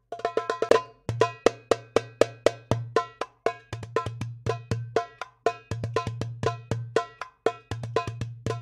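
Hadroh percussion playing a fast, steady rhythm through a sound system: sharp, ringing darbuka strokes, several a second, over a deep bass drum tone that drops out briefly a few times.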